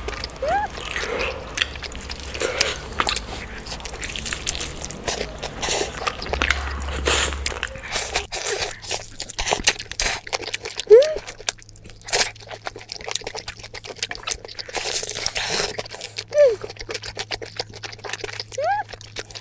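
A person eating close to the microphone: chewing and crunching, with a fork clicking and scraping on a plate, many small clicks throughout.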